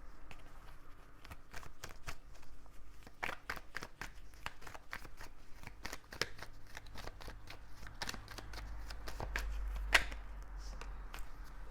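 A tarot deck being shuffled by hand: a run of quick card flicks and clicks, with a sharper snap about ten seconds in.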